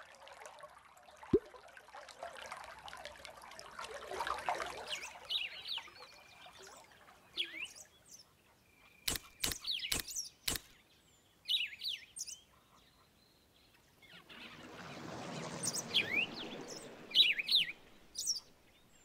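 Small birds chirping in short, scattered calls over a soft background hiss. A quick run of four sharp clicks comes about halfway through, and a swell of rushing noise rises and fades a few seconds before the end.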